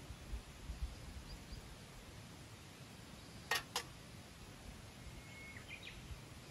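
A small metal cooking pot is set down on a camping stove, giving two sharp metallic clinks just past halfway, against quiet outdoor background.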